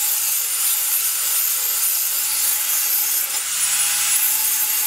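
Steel knife blade rubbed back and forth on a wet sharpening stone: a steady, even scraping hiss.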